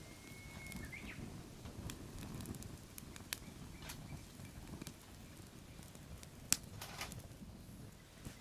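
Wood fire crackling, with scattered sharp pops over a low rumble and one loud crack about six and a half seconds in.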